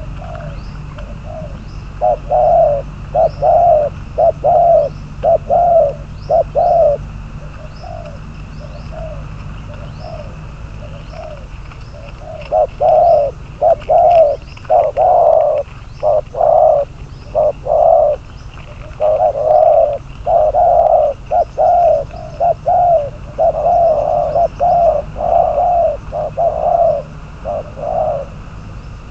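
Spotted doves cooing in repeated runs of short, low coos, with a lull of several seconds near the middle before the cooing resumes. Faint chirps of small birds run underneath.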